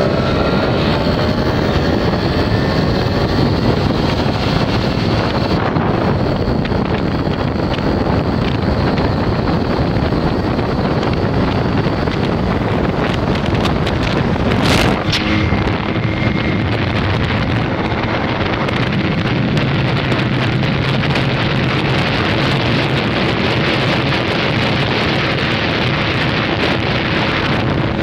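Simson two-stroke moped running steadily at road speed, largely buried under wind rushing over the microphone, with a single knock about fifteen seconds in.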